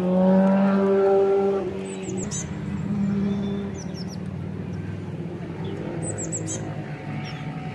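A motor vehicle's engine running with a steady hum, loudest in the first couple of seconds and again briefly about three seconds in. Small birds give quick runs of high, falling chirps three times.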